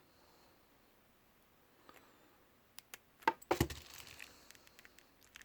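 Small hard clicks and scrapes of a screwdriver working a smartwatch band's pin, with a quick cluster of sharp clicks about three and a half seconds in.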